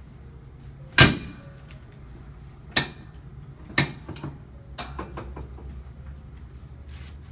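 Sharp clacks of a chiropractic hip adjustment on an adjusting table. The loudest comes about a second in, followed by three weaker ones about a second apart.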